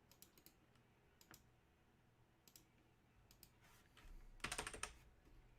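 Computer keyboard keys clicking faintly: scattered single taps, then a quick run of typing about four and a half seconds in.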